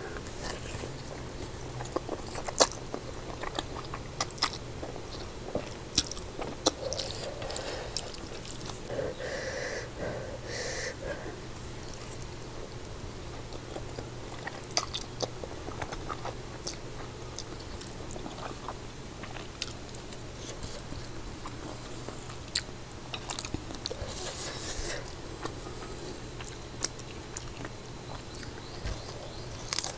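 Close-up chewing and slurping of spicy instant noodles eaten with chopsticks, with many scattered sharp mouth and utensil clicks. A faint low steady hum runs underneath.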